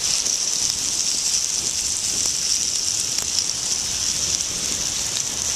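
Thinly sliced marinated beef skewers sizzling on a FireBox folding stove over a kiawe wood fire: a steady high hiss with faint scattered crackles.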